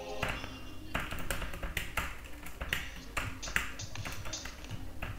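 Computer keyboard typing: irregular keystroke clicks, about three or four a second.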